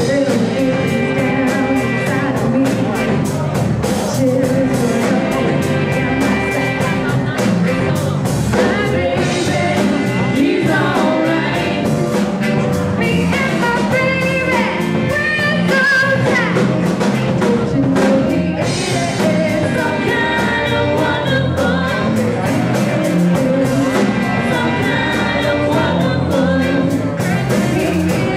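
Live soul band playing, with a female lead vocal over drums, keyboards and guitar; about halfway through she sings a run of gliding, ornamented notes.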